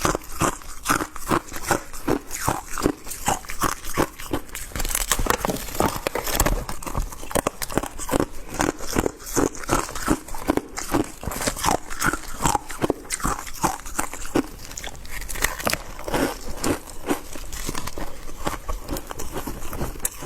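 A person chewing a mouthful of shaved ice close to the microphone: a steady run of crisp crunches, a few a second.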